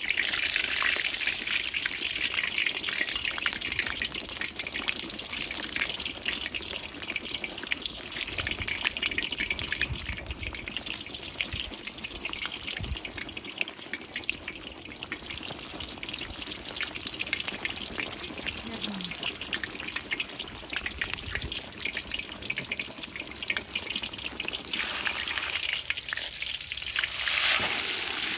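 A watermelon slice deep-frying in hot oil in a cast-iron kazan: dense sizzling and spitting throughout. The sizzle is strongest in the first few seconds, eases off through the middle, and swells again near the end into a loud burst of spattering as the watery slice boils hard.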